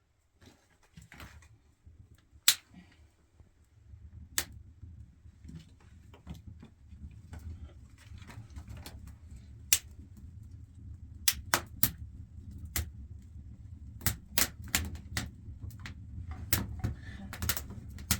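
Irregular sharp clicks and knocks, some single and some in quick clusters, over a low rumble that comes in a few seconds in.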